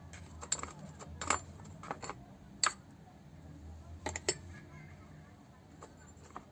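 Irregular sharp metal clinks and taps, about eight in all with the loudest near the middle, as tools and small metal parts of a power steering pump are handled during disassembly. A faint steady low hum runs underneath.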